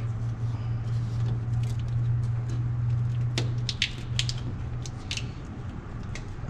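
Sharp metallic clinks and scrapes of tools and loose rusty parts on the underside of a truck, about a dozen in a cluster near the middle, over a steady low hum.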